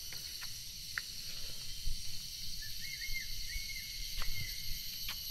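Steady high-pitched insect chorus, with a few sharp clicks and a bird's short run of chirps about halfway through.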